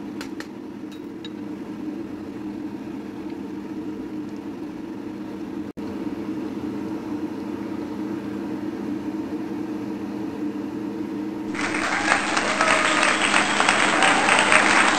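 A steady low hum with a few light clicks near the start, then, about three-quarters of the way in, loud applause comes in suddenly and keeps going.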